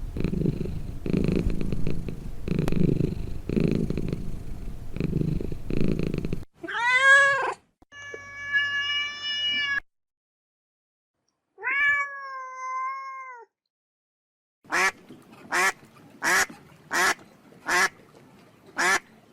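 Domestic cat: a low, pulsing rumble for the first six seconds, then three drawn-out meows that rise and fall. Near the end comes a quick series of about seven short meows, roughly one every half second.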